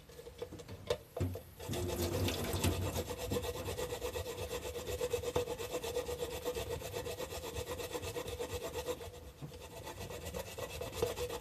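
Fresh ginger being grated by hand on a grater: a fast, even rasping of back-and-forth strokes, starting about two seconds in after a few light clicks.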